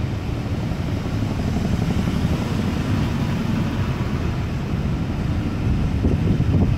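Railway coaches of a charter train rolling past along a station platform: a steady low rumble of steel wheels on the rails, a little louder and more uneven near the end.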